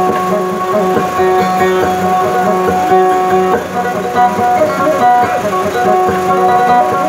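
Maguindanaon kutiyapi, a two-stringed boat lute, being plucked: a run of held melody notes that change every second or so over a steady low drone.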